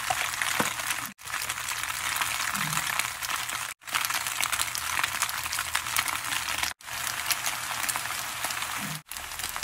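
Macaroni, shrimp and egg sizzling in a hot wok: a steady crackling hiss. It drops out completely for an instant four times.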